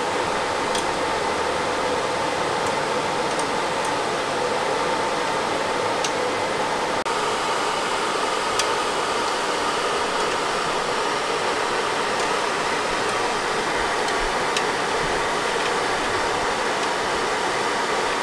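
Steady whirring noise of a fan-type blower running, with a few faint ticks.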